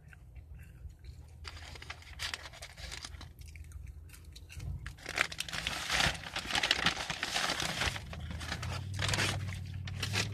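Paper fast-food packaging crinkling and rustling as it is handled, in irregular spells that grow louder about halfway through.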